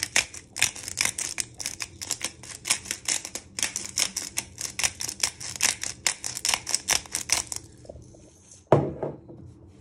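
Hand-twisted glass pepper grinder grinding black peppercorns: rapid clicking at about five clicks a second, stopping about three-quarters of the way through. A single thump follows near the end.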